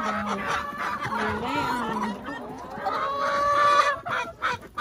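Chickens in a coop clucking and calling, with several drawn-out calls each held for up to about a second, and a few short knocks near the end.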